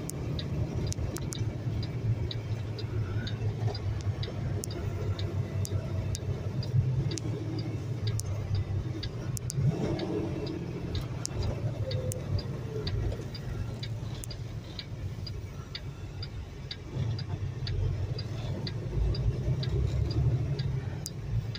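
Semi-truck's diesel engine rumbling low in the cab as the truck rolls, with a turn-signal flasher ticking evenly, about three ticks a second.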